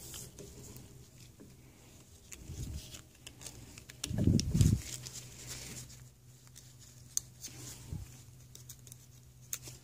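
Gloved hands fitting water pump parts over the drive shaft onto an outboard lower-unit housing: faint rustling, rubbing and light clicks, with a louder, brief low rubbing thump about four seconds in, over a steady low hum.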